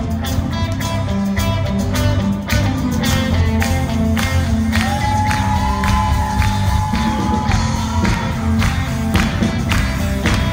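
Live church worship band playing: drum kit keeping a steady beat under electric bass and guitars. A single high note is held for a couple of seconds around the middle.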